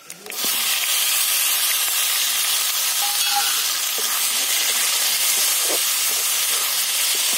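Chopped onion frying in hot mustard oil in a wok-shaped karai: a loud, steady sizzle that starts suddenly as the onion goes in. A flat metal spatula stirs it.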